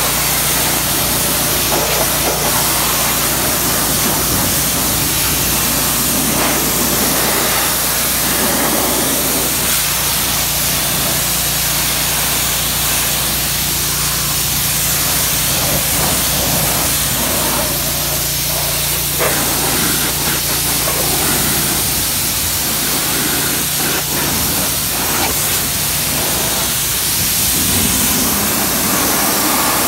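Kranzle K1322TS electric pressure washer spraying: a steady hiss of the water jet hitting a tyre and wheel well, with the low hum of the washer's motor and pump underneath.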